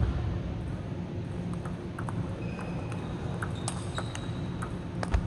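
Table tennis balls clicking off bats and tables during rallies: irregular sharp clicks from several tables, over the steady hum of a large sports hall. A heavier thump comes about five seconds in.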